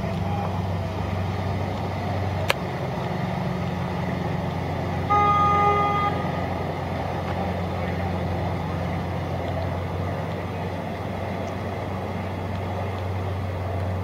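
Steady low engine drone from a small harbour ferry boat motoring past, with a single horn blast of about a second near the middle and a sharp click before it.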